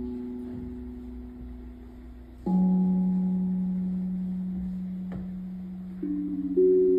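Steel tongue drum struck with mallets, slow single notes left to ring out and fade. A strong low note enters about two and a half seconds in and sustains, and softer, higher notes join near the end.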